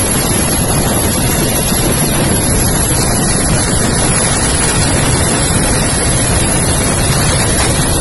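Steady, loud rushing noise of wind buffeting the microphone of an aircraft in flight.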